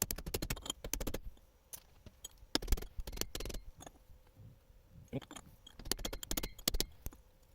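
Small metal tools and parts rattling and clicking as they are handled and set down on a workbench, in several short clattering bursts with pauses between.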